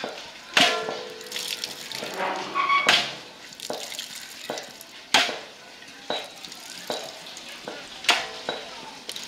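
Lac-dyed silk yarn being wrung out by hand over a metal basin: dye liquid dripping and splashing into the basin, with four sharp splashes about two to three seconds apart.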